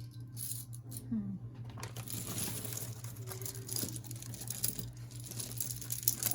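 Metal costume jewelry clinking and jangling in irregular small clicks as pieces are handled and set down, over a steady low hum.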